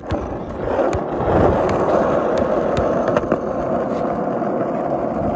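Skateboard wheels rolling over rough, cracked asphalt: a loud, steady rumble that builds over the first second, with a few sharp clicks.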